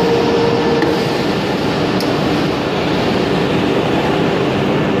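Steady mechanical din of running woodworking machines, with a light click about two seconds in.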